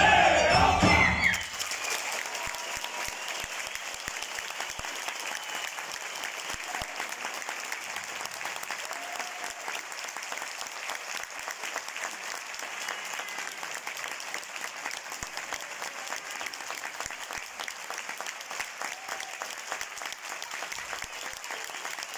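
A live folk band's music stops about a second and a half in, and an audience applauds steadily for the rest of the time.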